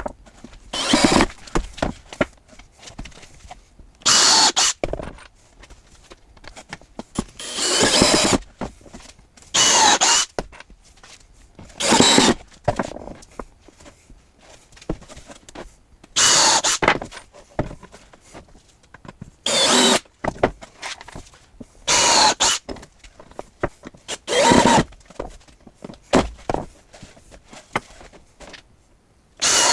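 Screw gun driving 1 5/8-inch screws into wood in short bursts of about a second each, roughly ten in all, with pauses between them.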